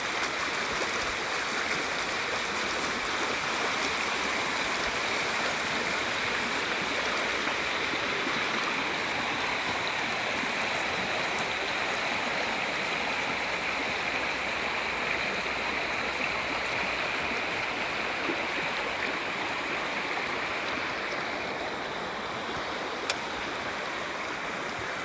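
River water flowing in a steady rush, with one brief click near the end.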